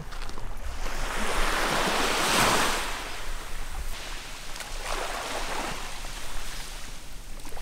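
Small waves washing onto a beach: a rushing wash that swells and fades, loudest about two and a half seconds in, with weaker washes later on.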